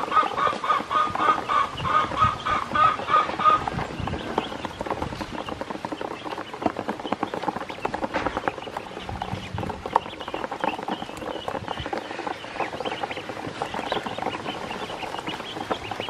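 Ducklings calling in a fast run of peeps, about five a second, for the first three seconds or so. Then they splash and dabble in a shallow tub of water, with softer scattered peeps.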